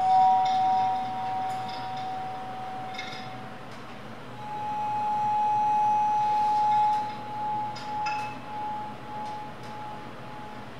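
Sustained ringing tones, with light glassy clinks scattered through. One tone fades out a few seconds in, and a slightly higher one swells up about four seconds in and holds for about five seconds before dying away.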